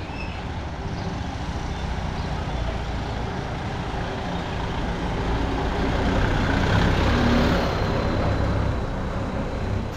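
Motor traffic: a vehicle's engine running with a low rumble, growing louder to a peak about seven seconds in, then easing off as it passes.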